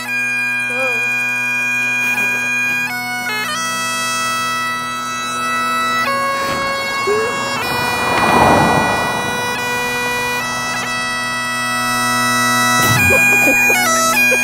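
Highland bagpipes playing a slow tune over their steady drones. About halfway through, a truck passes close by on the road, its rush swelling and fading under the pipes.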